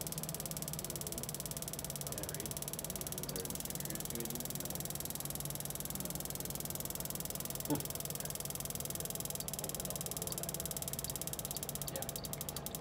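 MAC liquid dosing pump ticking rapidly and evenly, about 18 to 20 strokes a second, one stroke per pulse from the function generator, while pumping water at near its top rate. The ticks spread out a little near the end, and there is one short knock about eight seconds in.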